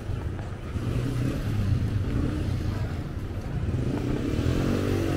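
Street traffic: engines of motor vehicles running and passing. Near the end one engine note rises and falls as it goes by.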